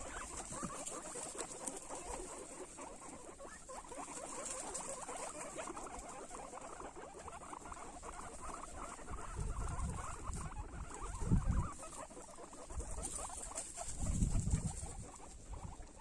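Guinea pigs eating: many small, rapid crunching and nibbling sounds. A few dull low thumps come in about two thirds of the way through and again near the end.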